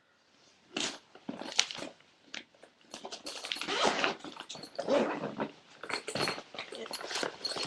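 A Lowepro camera bag and its plastic packaging being handled and opened by hand: irregular rustling and scraping that starts about a second in and goes on in short uneven bursts.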